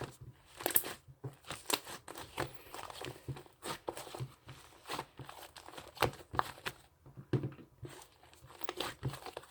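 Irregular close-up crinkling and crackling, like something being handled or crumpled, in uneven clusters of sharp little clicks.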